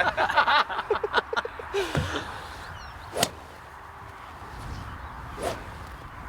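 A golf club strikes a ball with one sharp crack about three seconds in, and a fainter click follows near the end. Voices trail off in the first two seconds.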